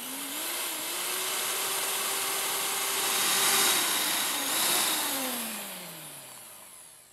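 Electric mixer whipping egg whites to stiff peaks: a steady motor whine over a loud beating hiss. The pitch rises as it starts, dips briefly about four and a half seconds in, then falls away as the mixer is switched off and winds down.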